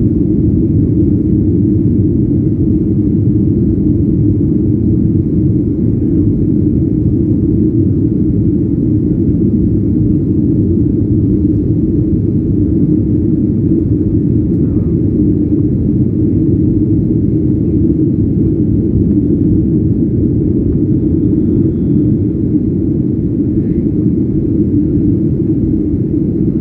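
Steady low rumble of a Boeing 737 airliner's jet engines and rushing air, heard inside the passenger cabin during the climb after takeoff.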